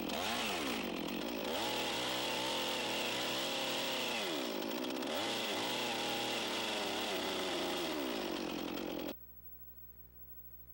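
Chainsaw cutting into a squared log along a marked line to form a tenon, its engine note dipping and recovering several times as the chain bites. The sound stops abruptly about nine seconds in, leaving only a faint hum.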